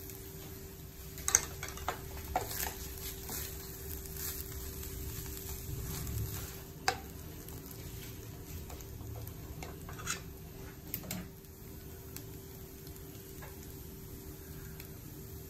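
Wooden spatula stirring and tossing fried rice in a kadai over a steady faint sizzle, with several sharp knocks of the spatula against the pan, the loudest about a second in.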